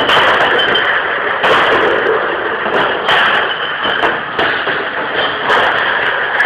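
Plastic beer crates with bottles clattering and knocking as they are handled and stacked: irregular sharp knocks, about one every second or so, over a steady loud noise.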